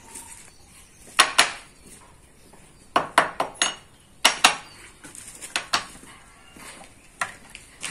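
Sharp metal clinks and knocks, in pairs and small clusters, as the small steel parts of an electric hand planer's blade assembly (blade holder, bolts) are handled and set down on a wooden workbench during a blade change.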